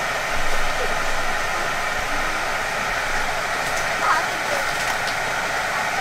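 Battered food deep-frying in a pot of hot oil: a steady, even sizzle.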